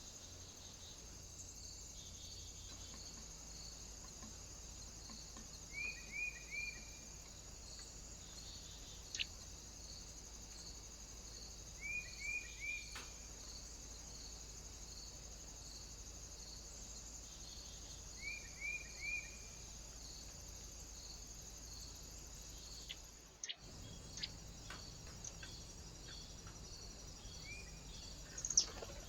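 A bird calls in short bursts of three quick falling notes, repeated about every six seconds, over a steady high hiss. Scattered faint clicks, and a brief dropout partway through.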